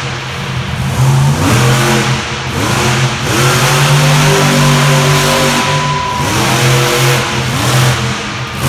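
Monster truck's big-block V8 revving hard again and again as it drives the track. The pitch climbs, holds high for about two seconds midway, drops, then climbs again near the end.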